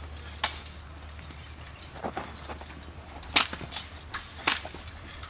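Sword blades clashing in a fencing bout: a string of sharp, separate clacks, one about half a second in, a couple around two seconds and a quicker cluster near the end.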